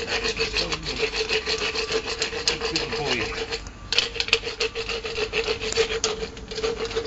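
Horse's teeth being rasped with an equine dental float while the mouth is held open in a gag. The rough filing strokes come in a steady run over a steady hum, with a short break a little before four seconds in.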